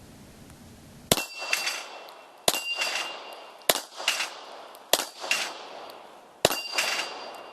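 Five shots from a Bulgarian Makarov 9x18mm pistol, a second or so apart, each followed a fraction of a second later by the ringing clang of a steel plate being hit.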